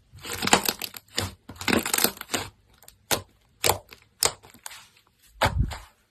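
Slime being squeezed and pressed by hand. It starts as a run of short noisy squishes, then turns into separate sharp clicks and pops about halfway through.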